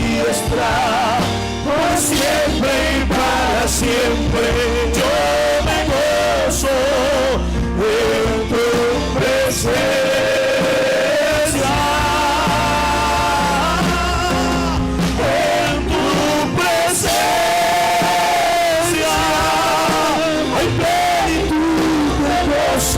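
A live worship band plays a Christian praise song: a sung or played melody over a steady bass and percussion.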